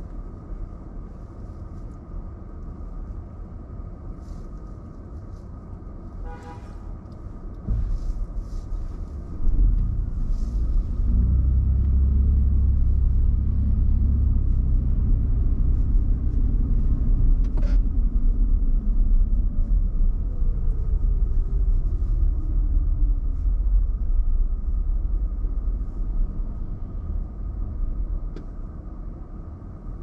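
Car driving through snow, a steady low road and engine rumble that swells loud about ten seconds in, stays loud for some fifteen seconds, then eases off. A brief pitched tone sounds about six seconds in, and a slow falling whine passes near the middle.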